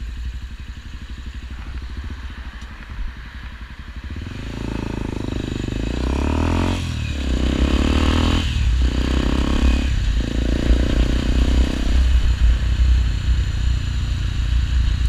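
Honda XRE 300's single-cylinder engine through a Roncar RS5 Boca 8 aftermarket exhaust, running low at first. About four seconds in it opens up and accelerates in several pulls with short breaks between, as if shifting up through the gears.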